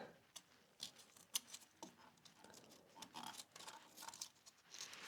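Faint, scattered light clicks and soft rustles of hands handling a cloth and small parts.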